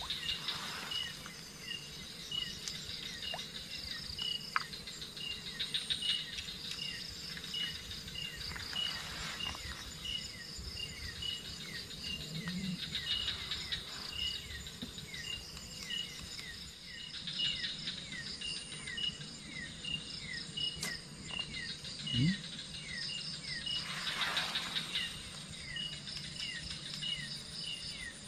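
Night insects calling together: an even chirp about twice a second over repeated short falling notes, with buzzy trills every few seconds.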